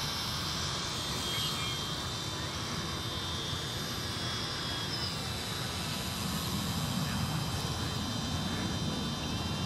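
Giant electric RC airplane's motor and propeller whining in flight: a steady high-pitched whine that shifts slightly in pitch a couple of times, over a low rumble.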